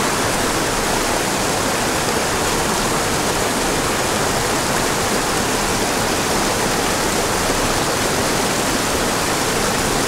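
Small waterfall pouring into a rocky creek pool: a steady, loud rush of falling water.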